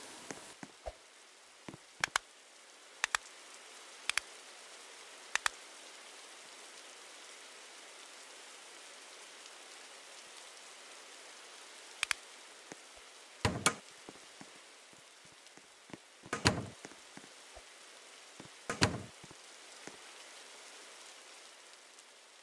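Steady rain with a constant hiss. Paired sharp clicks come about once a second in the first several seconds, and a few louder knocks follow in the second half.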